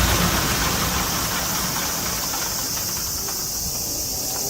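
Mitsubishi A6M Zero fighter's radial engine running at low power, its sound steadily fading over the last seconds.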